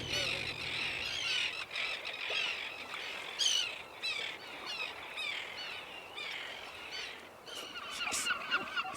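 A wildlife colony's chorus: many animals calling over one another at once, a dense run of short, high chirping calls, loudest about three and a half seconds in and again near the end.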